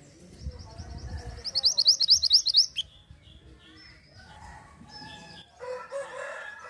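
A mantenan (minivet) songbird calling: a quick run of high, upward-sweeping chirps, about eight a second for just over a second, followed near the end by softer, lower-pitched calls.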